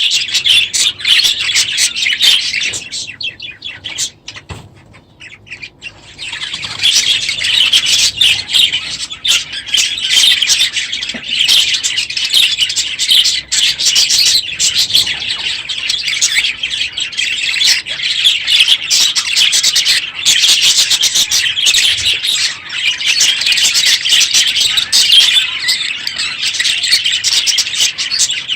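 A flock of budgerigars chattering, with many overlapping chirps and squawks. The chatter thins out briefly a couple of seconds in, then thickens again from about six seconds in.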